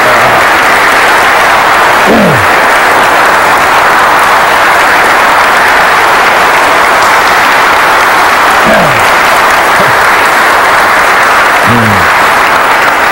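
A large audience applauding steadily, with a few short calls falling in pitch among the clapping.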